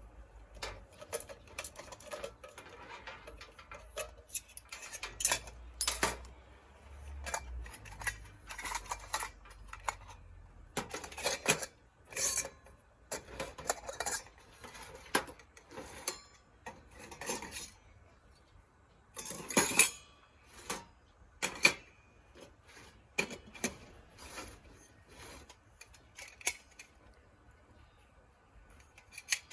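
Metal parts of a compact folding wood stove clinking and clattering as they are handled, in a run of separate, irregular knocks and rattles, the loudest about twenty seconds in.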